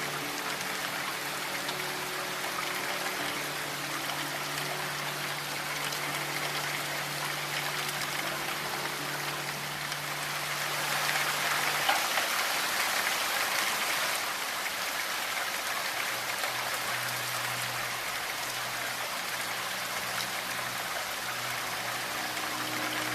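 Steady rain falling, swelling a little louder for a few seconds in the middle, over soft sustained low synth tones. The tones drop out about halfway through and return at a lower pitch a few seconds later.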